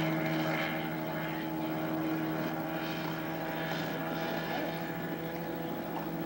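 A 2002 Penn Yan Swift motorboat's engine running at a steady pitch, a constant hum with a rushing hiss that swells and fades over it.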